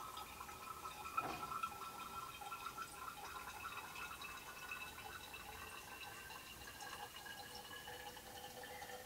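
Distilled water running from a burette into a glass volumetric flask, topping the sodium hydroxide solution up to the graduation mark: a faint trickle with a thin ringing tone that slowly drops in pitch.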